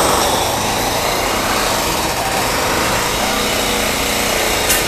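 Small engine-driven machine running steadily and loudly, with one sharp knock near the end.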